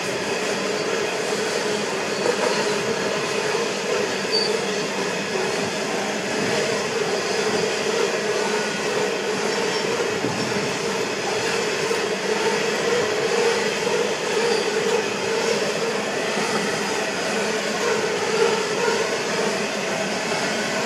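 Train rolling past: a steady noise of wheels running on the rails, with no horn and no clear clickety-clack rhythm.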